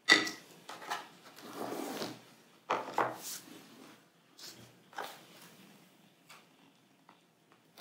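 Clear plastic food tubs and a glass mixing bowl being handled and set down on a plastic-covered table: a sharp knock at the start, some rustling, two clacks about three seconds in, then fainter knocks around five seconds.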